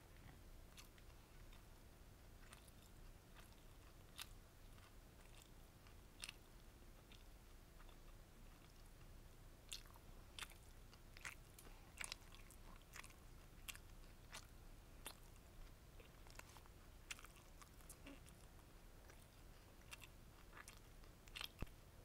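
Faint, close-miked chewing of beef bulgogi gimbap (seaweed-wrapped rice with crunchy vegetables, egg and beef), heard as soft crunches and wet mouth clicks. The clicks come irregularly and are busiest around the middle, with a couple of sharper clicks near the end.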